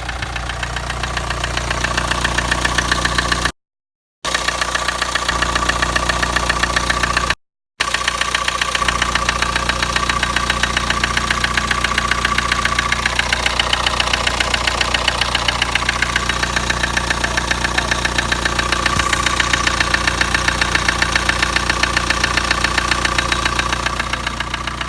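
Kia Sportage engine running with a steady, fast, regular knocking: the engine knock the owner is complaining of. The sound cuts out briefly twice, around 4 and 7.5 seconds in.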